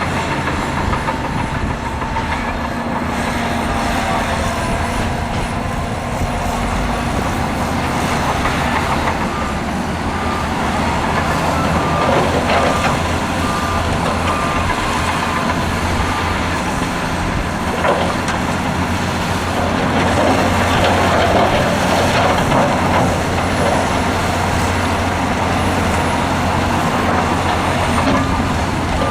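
Diesel engines of heavy earthmoving machines running steadily under load. A reversing alarm beeps at an even pace for several seconds about a third of the way in, and a few knocks come through now and then.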